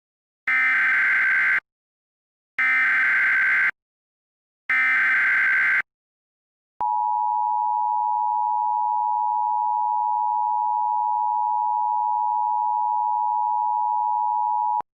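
Emergency Alert System broadcast start: three short bursts of screeching SAME header data, then the two-tone EAS attention signal held steady for about eight seconds before it cuts off.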